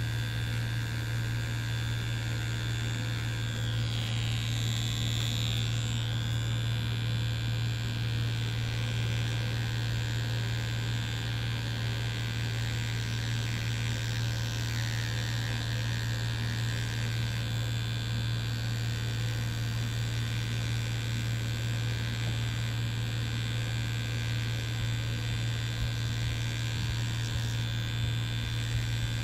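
Mummy Anubis tattoo machine buzzing steadily as its needle works into Reelskin fake skin.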